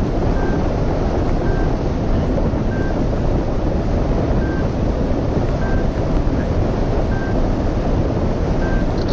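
Steady loud wind rushing over the wing-mounted microphone of a hang glider in flight. Faint short high beeps sound through it about once a second.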